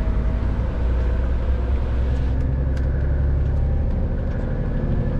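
Lorry engine running steadily as heard inside the cab while the truck moves slowly, a low drone that eases off about four seconds in, with a few faint clicks.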